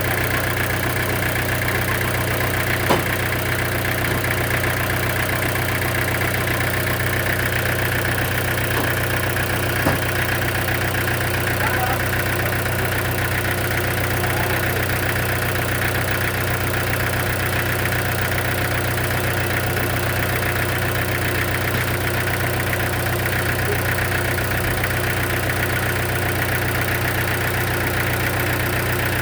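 An engine idling steadily, with two brief knocks, one about three seconds in and one about ten seconds in.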